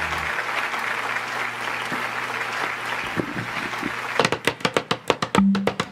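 Studio audience applauding; about four seconds in, a son jarocho piece starts with a quick run of sharp percussive strikes and a bass note.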